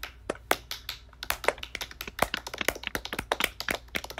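Several people clapping their hands at once, a dense, uneven patter of claps out of step with one another.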